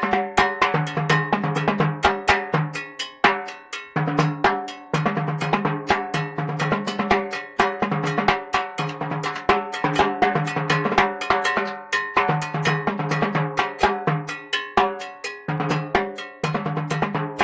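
Timbales and cowbell played fast with sticks: rapid strokes with the drums' ring in the low register, in phrases broken by several short pauses.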